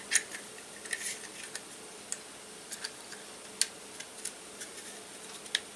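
Small sharp clicks and taps of a Glock 43's trigger assembly being handled and fitted back into the pistol frame, about six at irregular intervals.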